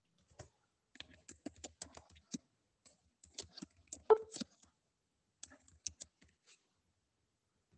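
Typing on a computer keyboard: quick runs of keystrokes with short pauses, one stroke louder than the rest about four seconds in, stopping about a second before the end.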